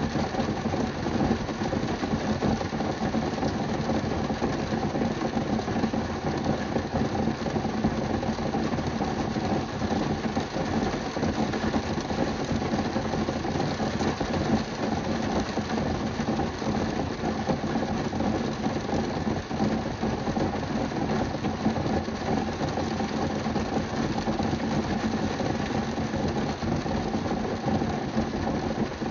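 Heavy rain hitting a car's roof and window glass, heard from inside the car: a dense, steady patter with a low steady hum underneath.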